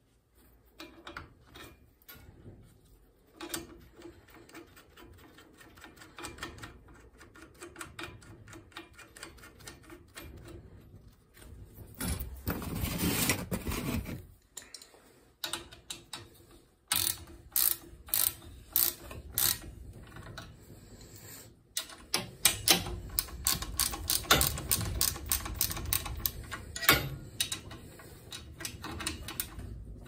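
Ratchet wrench clicking in quick runs as the flange bolts of a new boiler circulator pump are tightened, with louder stretches of clicking and metal handling about twelve seconds in and again from about twenty-two seconds.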